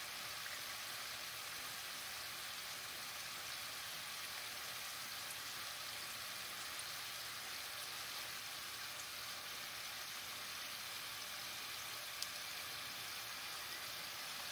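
Oliebollen dough fritters deep-frying in a pot of hot oil: a steady, even sizzle.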